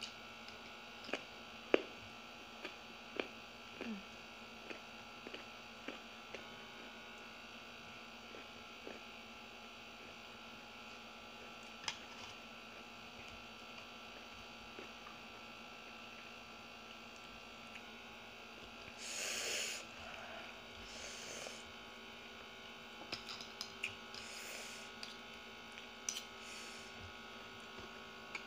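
Close-up eating sounds as grilled fish and rice are eaten by hand: a run of sharp mouth clicks and smacks in the first few seconds, then a few short rushing noises later on. A steady electrical hum runs underneath.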